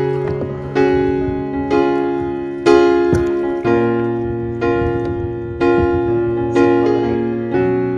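Background piano music: slow chords struck about once a second, each ringing and fading before the next.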